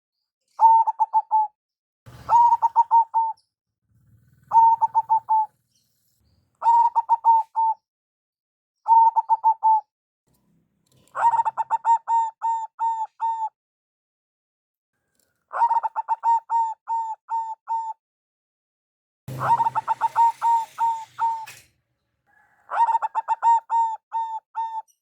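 Zebra dove (perkutut) singing its staccato cooing song: short phrases of quick repeated coo notes, about eight of them, separated by brief pauses. Under one phrase near the end there is a brief rustling hiss.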